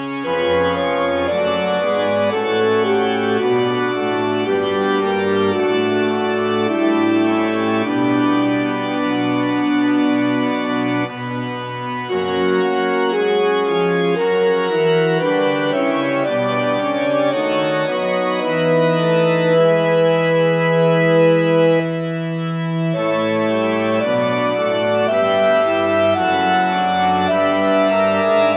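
Organ music: sustained chords under a slow melody line, with short breaks between phrases about 11 and 22 seconds in.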